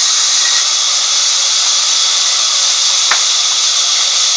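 Sawmill band saw running with a steady, high-pitched hiss as its blade saws timber, with a single sharp click about three seconds in.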